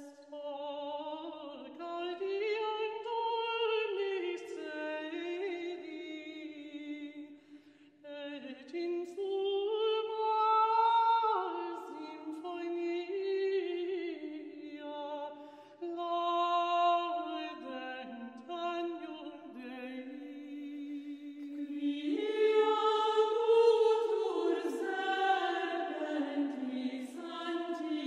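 Background vocal music: singing in slow, drawn-out phrases, with brief breaks about 8 and 16 seconds in.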